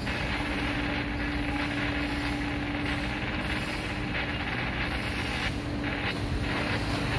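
A mobile crane's engine runs steadily while it hoists a load, over a constant rush of noise. A steady hum is clear for the first three seconds, then fades into the background.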